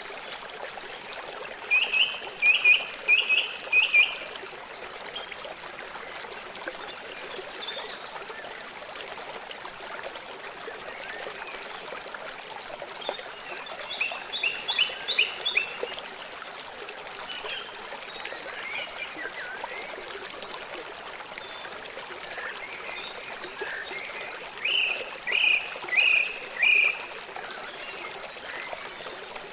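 A stream running steadily, with a bird calling over it in short runs of four or five quick notes, heard near the start, in the middle and again near the end, and a couple of higher chirps in between.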